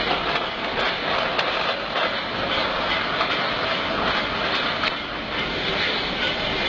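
Plastic crates of glass bottles rolling down a long roller conveyor chute: a steady rattling rumble with many small clicks from the rollers and the bottles in the crates.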